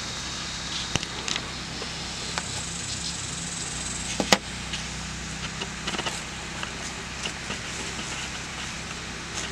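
Steady outdoor background noise with a low hum, a few faint scattered ticks, and one sharp click about four seconds in.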